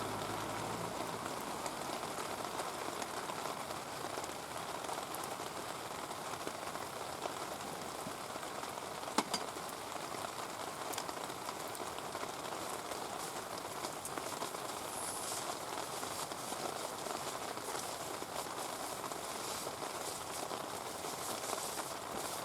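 Heavy rain falling steadily, with a single sharp pop about nine seconds in.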